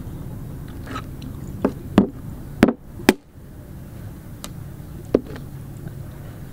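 A stone pestle striking cooked mud crab claws on a tabletop to crack the shells: a few sharp knocks, the three loudest in quick succession two to three seconds in, and another about five seconds in.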